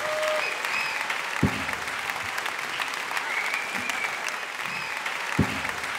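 Concert audience applauding steadily, with two louder thumps about a second and a half in and near the end.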